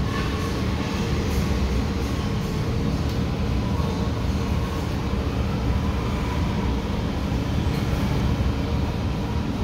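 A steady low rumble of running machinery, even in level throughout.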